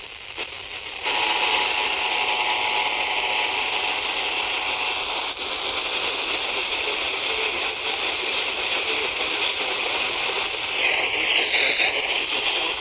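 FM radio static: a steady loud hiss and crackle of a weak signal on the receiver. Faint steady tones sit under it early on, and a wavering tone comes through near the end.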